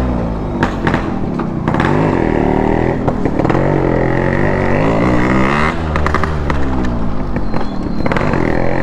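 Yamaha RX100's two-stroke single-cylinder engine pulling away, its pitch rising and falling several times as the throttle is opened and eased off.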